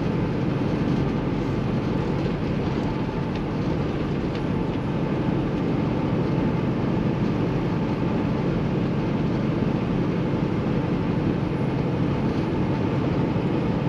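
Steady drone inside the cab of a 2016 Kenworth T680 cruising at highway speed: its PACCAR MX13 diesel running under tyre and road noise.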